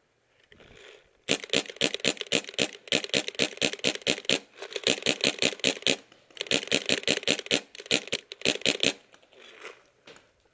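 Paintball marker firing rapidly, about seven shots a second, in three long strings of shots broken by short pauses.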